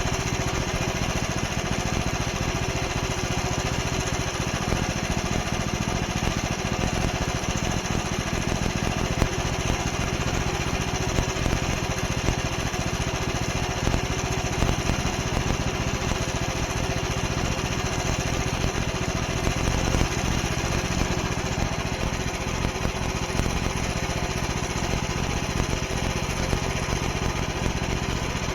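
Portable band sawmill's small gasoline engine running steadily.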